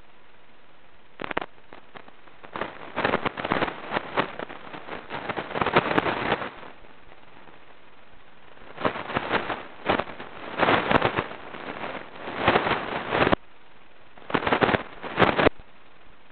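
Plastic Lego bricks being handled and pressed together close to the microphone: dense clicking and clattering in three stretches of a few seconds each, with short pauses between.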